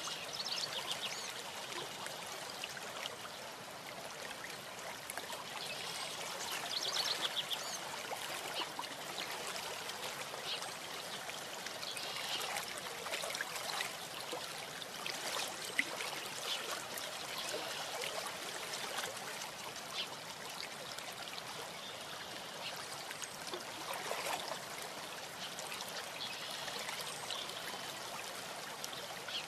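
Steady rushing hiss of outdoor ambience on the nest camera's microphone, with brief high chirps now and then.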